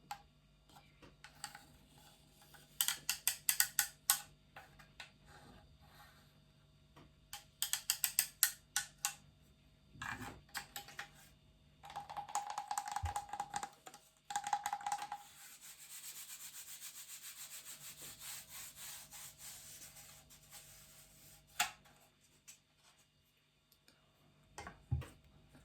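Close-up ASMR trigger sounds from small objects being scratched and rubbed: two bursts of rapid fine clicks, a short squeaky rub, then a long steady scratchy rubbing.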